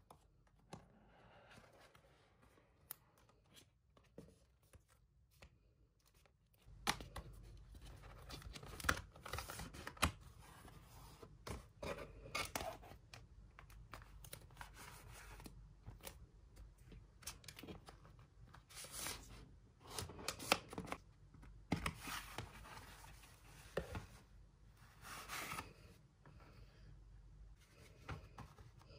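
Cardboard and paper packaging being handled: inner lids and inserts lifted and slid out, with rustling, scraping and scattered taps and clicks. It starts sparse and gets busier about seven seconds in.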